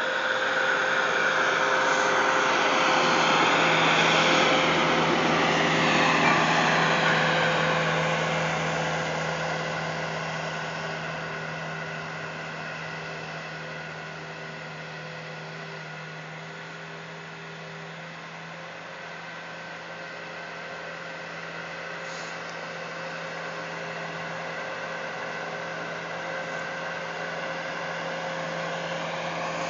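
Bobcat loader's engine running steadily while clearing snow. It is loudest a few seconds in, fades through the middle, and grows louder again near the end.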